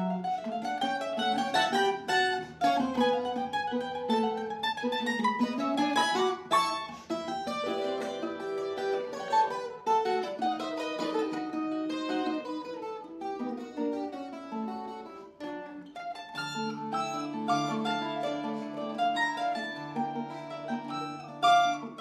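Bandola and tiple duet playing a bambuco: the bandola picks a busy melody in quick runs of plucked notes over the tiple's chordal accompaniment.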